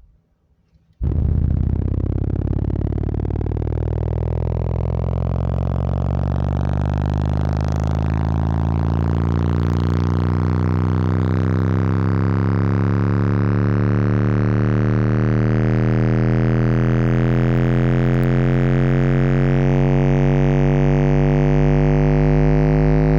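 Three 15-inch Slapz Audio Oblivion car subwoofers playing a loud bass test-tone sweep from 15 to 65 Hz. It comes in about a second in and then drones on with many overtones, climbing slowly and evenly in pitch. The subs are being pushed hard in a voltage torture test.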